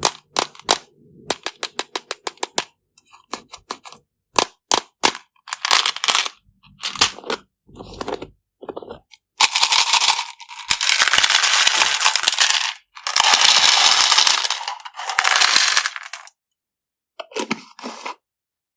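Small hard candies clicking as they drop one by one onto a hard surface, in a quick run at first, then poured in several longer streams in the second half.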